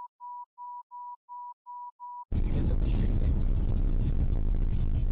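Seven short electronic beeps at one steady pitch, about three a second. About two seconds in, they give way to the loud, steady rumble and road noise of a moving car heard from inside, as a dashcam records it.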